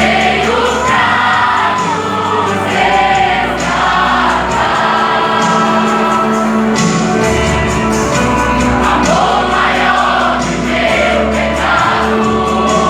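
Live gospel worship music: voices singing with vibrato over a band, with long held bass and keyboard notes underneath.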